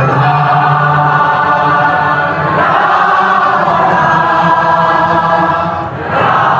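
Devotional kirtan: a group of voices singing a chant together in long held notes, dipping briefly about six seconds in before coming back.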